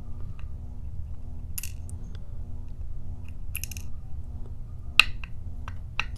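Small metal padlock parts, pin tumblers and springs, clicking and tinkling as the lock is taken apart: a scatter of sharp clicks, the loudest about five seconds in, over a steady low hum.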